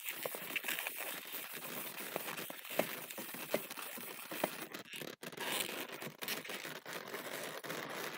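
Latex modelling balloons rubbing and creaking against each other as a light-green 160 balloon is twisted and wrapped around a balloon sculpture: an irregular crinkly rubbing with a few sharper clicks.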